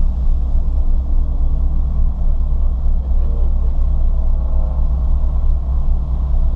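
Ford Fiesta ST's engine and road noise heard inside the cabin: a loud, steady low rumble at a nearly constant pitch.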